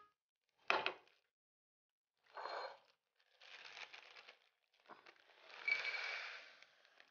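Sheet of kitchen paper rustling and being crumpled by hand in three stretches, the last the loudest, after a short knock about a second in.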